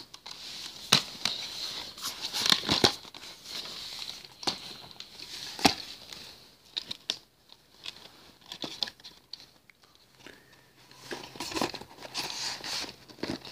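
A plastic DVD case and its paper insert being handled: rustling and crinkling with scattered sharp clicks and taps, quieter in the middle.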